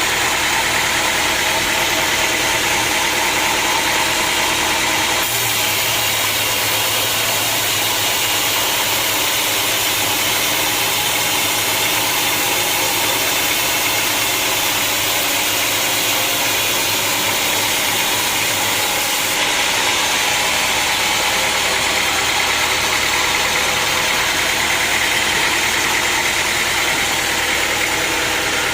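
Sawmill machinery running steadily with a constant mechanical drone and hiss, its tone shifting about five seconds in and again about twenty seconds in.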